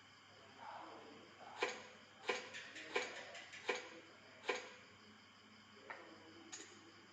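Sharp clicks and knocks of Lego pieces tapping together: five firm ones spaced evenly over a few seconds, then two fainter ones near the end.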